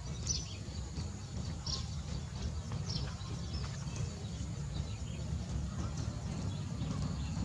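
Steady low rumble of wind on the microphone outdoors, with brief high chirps now and then.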